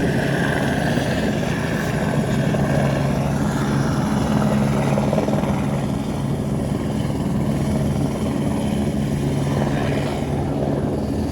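Airbus helicopter running steadily, its rotor beating over a constant low turbine drone, while coming in to land.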